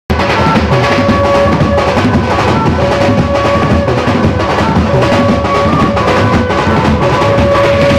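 A desi village band playing: loud, continuous drumming with a steady beat, under a melody of long held notes.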